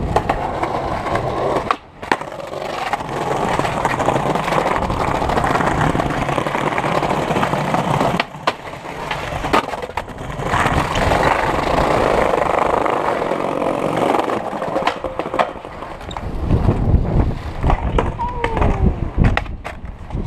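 Skateboard wheels rolling over pavement in two long runs, broken by several sharp clacks of the board hitting the ground, more of them in the last few seconds.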